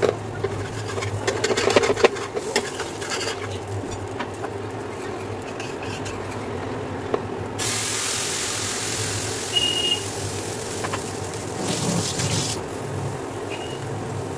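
Metal spatula scraping and tapping on a nonstick pan as a chilla is worked loose and lifted. Batter is then poured onto the hot pan and sizzles with a steady hiss for about five seconds, over a low steady hum.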